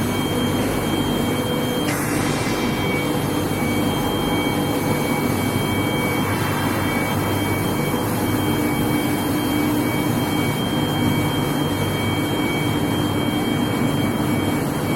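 Long steel bar induction hardening and tempering line running: a steady machine drone with several constant whining tones, and a sudden rush of hiss about two seconds in.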